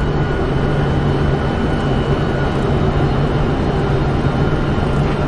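Steady flight-deck noise of a Boeing 747-400 freighter on short final: rushing airflow over the cockpit with a steady low hum underneath.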